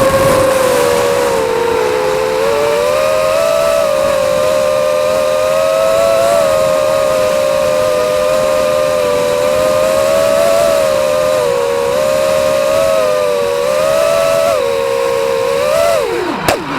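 FPV racing quadcopter's brushless motors and propellers whining steadily, their pitch rising and falling a little with the throttle. Near the end the pitch drops sharply as the motors spin down.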